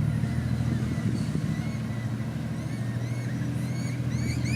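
Ford G6E Turbo's turbocharged straight-six idling steadily, with birds chirping in the background.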